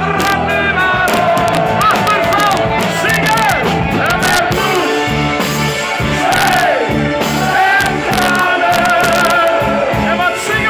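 Live party band playing loud music with a steady beat and a singer, the crowd singing along.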